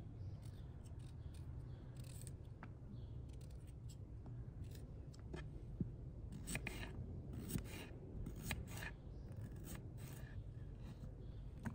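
Small kitchen knife peeling and cutting garlic cloves on a wooden cutting board: a run of light scrapes and crisp cutting clicks, with a cluster of sharper knife strokes about halfway through.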